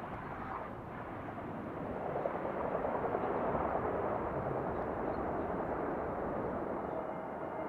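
Airliner on short final approach, its engine noise swelling as it comes closer about two seconds in and then holding, with a faint steady whine coming in near the end.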